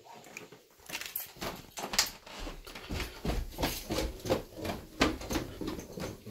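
Footsteps going down wooden stairs: a run of irregular soft thuds and knocks, about two or three a second, with clothing and handling rustle.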